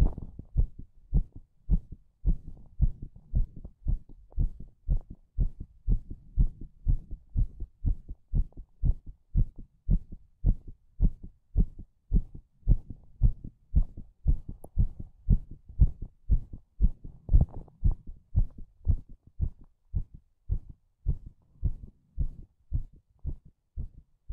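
Strong heartbeat: a steady run of low, dull thumps, about two a second.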